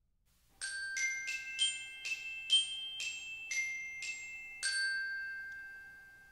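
A short music jingle of about ten struck, bell-like notes, starting about half a second in. The last note rings on and fades away.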